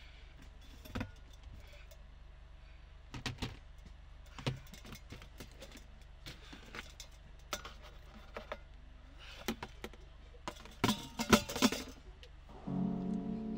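Plastic bowl and lid being handled: scattered light knocks and clatters, with a quick run of louder clacks about eleven seconds in. Soft music comes in near the end.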